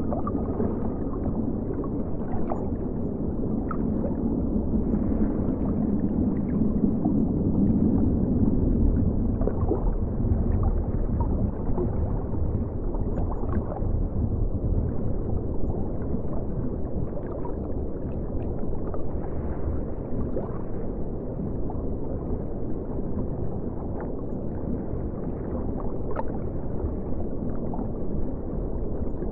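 Muffled, steady rush and gurgle of river water heard from underwater, with scattered small ticks and clicks.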